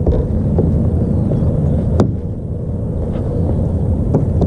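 Motorboat engine running steadily nearby, a low drone, with two sharp clicks, one about two seconds in and one near the end.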